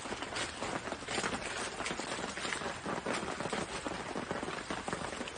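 Burger patties sizzling on a grill rack over a wood campfire, with the fire crackling: a steady dense crackle full of small pops.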